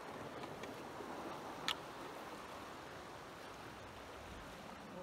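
Steady wash of sea water and wind, with one sharp click about a second and a half in.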